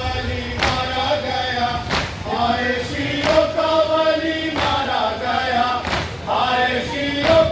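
A crowd of men chanting a Muharram noha together, with a strong collective thump roughly every second and a half from matam, the mourners beating their chests in time with the chant.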